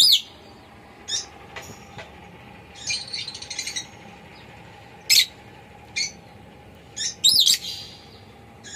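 Pet lovebird chirping: short, sharp, high chirps, some single and some in quick pairs, with a brief buzzy chattering run about three seconds in.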